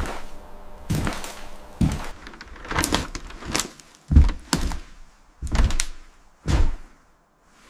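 A series of about ten heavy thuds and knocks, irregularly spaced and some coming in quick pairs, dying away about a second before the end.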